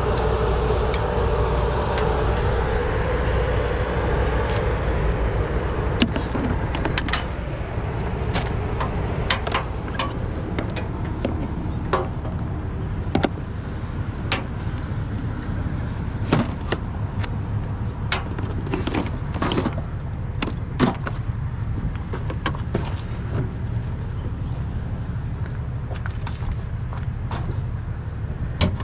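Metal chain and tow hooks clinking and knocking in sharp, irregular clanks as they are fitted to a truck's front tow hooks, over the steady low hum of an idling truck engine. A louder rumble fades away over the first few seconds.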